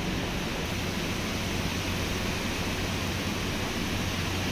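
Steady background noise: an even hiss over a low, steady hum, with no distinct events.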